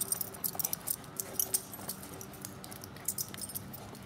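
Metal dog collar tags jingling in quick, irregular clicks as two dogs chase and wrestle.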